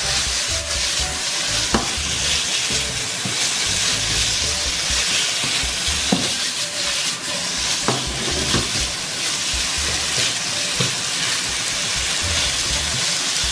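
Chopped chilies and garlic sizzling in hot oil in a pan, stirred with a spatula, with a few sharp knocks of the utensil against the pan. This is frying the aromatics until fragrant, before the sauce goes in.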